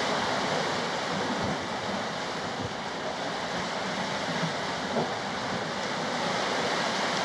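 Steady rush of open-sea waves and water around a sailing catamaran under way, with wind on the microphone and a light tap about five seconds in.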